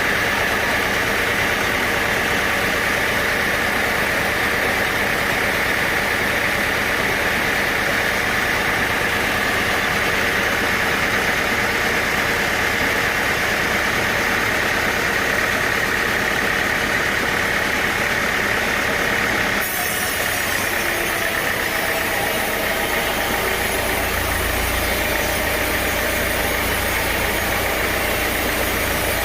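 Sawmill machinery running steadily: an engine-driven saw drone with a constant high whine. About twenty seconds in the sound changes abruptly, turning brighter, and a deep rumble joins it soon after.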